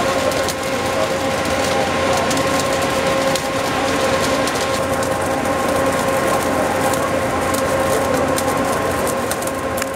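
Holland mobile flash butt rail welding machine at work: a steady mechanical drone with a constant whine, overlaid by sharp crackling clicks, more of them in the second half, from the welding head flashing at the rail joint.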